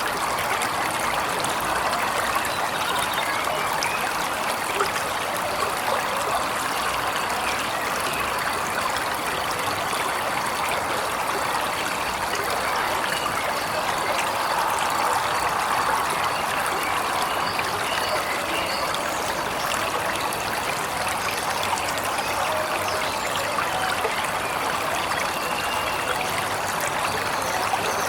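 Waterfall: a steady rush of falling and running water, even in loudness throughout.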